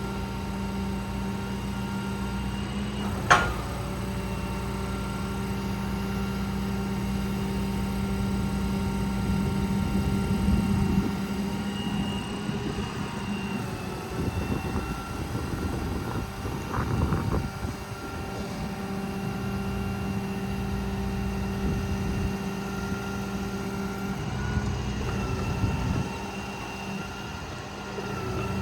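6.7 Cummins diesel running steadily, driving the Stellar 7621 crane's PTO hydraulic pump, a steady hum that swells and roughens at times as crane functions are worked. A single sharp click about three seconds in.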